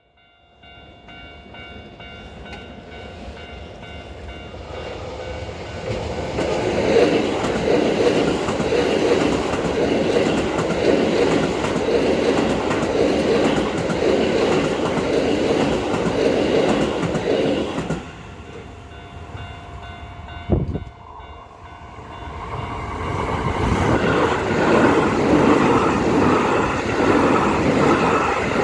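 Electric commuter trains passing over a level crossing, with wheels clattering over the rail joints. The first train builds up over several seconds, runs loud, and cuts off sharply about 18 seconds in. A single sharp knock follows a few seconds later, then a second train approaches and passes to the end.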